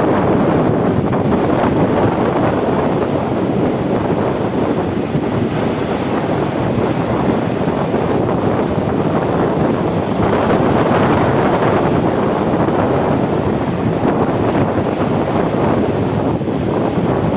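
Sea waves with wind buffeting the microphone: a steady rushing that swells a little about two-thirds of the way in.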